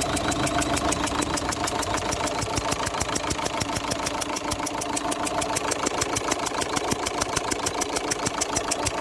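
Opel Zafira 1.9 CDTI four-cylinder diesel idling steadily, with a regular ticking beat several times a second. The engine is losing compression past the number-two injector, whose copper sealing washer needs replacing.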